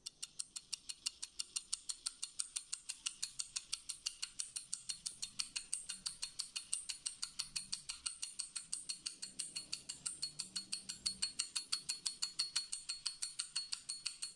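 Timepiece ticking quickly and evenly, about six ticks a second, fairly faint, stopping just before the end.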